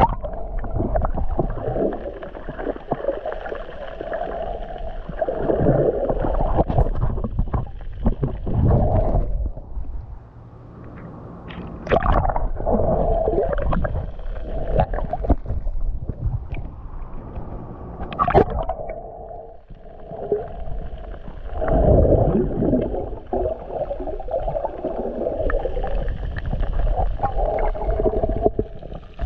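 Muffled underwater water noise picked up by a submerged handheld camera: gurgling and rushing water that swells and fades every few seconds, with a few sharp clicks.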